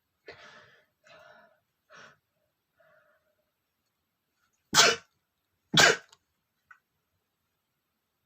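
A man sneezing twice, about a second apart, after a few faint catching sounds as the sneeze builds.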